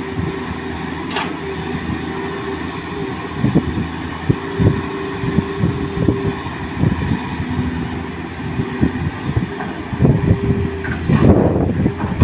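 Crawler excavator's diesel engine running steadily under load, with a hydraulic whine that comes and goes as the arm and swing work, and scattered clunks. Near the end a louder rough rush as soil and rock drop from the bucket into the dump truck's bed.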